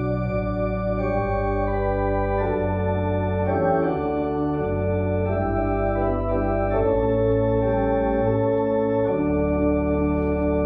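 Church organ playing a slow hymn tune, sustained chords changing every second or two, ending on a long held chord.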